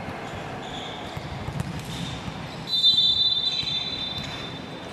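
Referee's whistle blown once in a volleyball match: a loud, shrill tone lasting about a second and a half, starting just past the middle. Before it come a few dull thuds of the ball bounced on the hard court floor, all echoing in a large sports hall.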